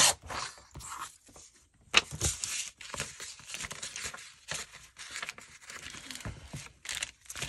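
Paper being torn and crinkled by hand: a string of irregular rustles and short rips, the loudest at the start and about two seconds in.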